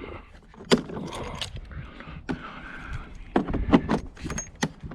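Sheet metal of a dishwasher's base clanking and scraping as it is pried loose with hand tools, with several sharp metallic knocks.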